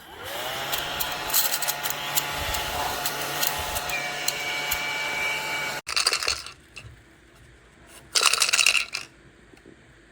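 Small battery mini desktop vacuum cleaner switched on: its motor whine rises as it spins up, then runs steadily with rattling clicks for about six seconds before cutting off suddenly. A short burst of noise follows about two seconds later.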